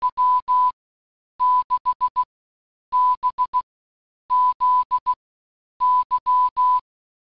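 Morse code tone sending the amateur radio call sign W6BZY: a single steady beep keyed in dashes and dots, in five letter groups with short pauses between them.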